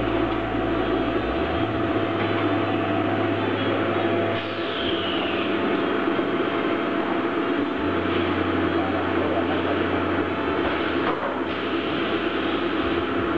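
HG-1005AH high-frequency plastic welding machine running: a steady mechanical noise with a thin constant whine, and under it a deeper hum that comes on for a few seconds at a time and cuts off again.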